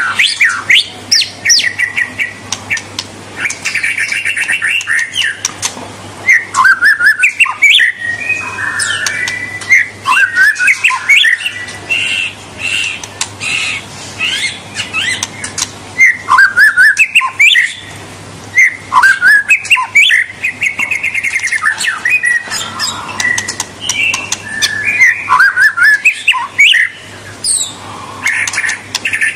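White-rumped shama (murai batu) singing a long, varied song, clear and shrill: rising and falling whistles mixed with rapid chattering trills and sharp clicks, in phrases broken by short pauses.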